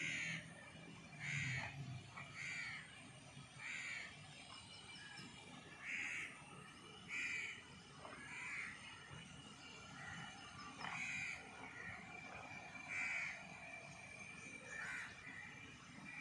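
A bird calling over and over: about ten short, harsh calls, one every one to two seconds.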